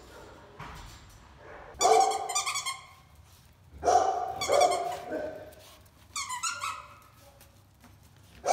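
Cockapoo puppies yapping in three short bouts of quick repeated high-pitched barks, with another starting at the very end.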